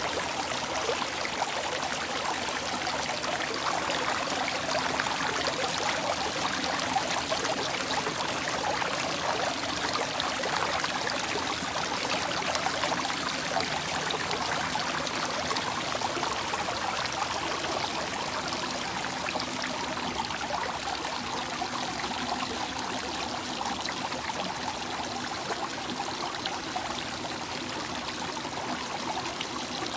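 Flowing water, running steadily with a dense splashing and trickling texture.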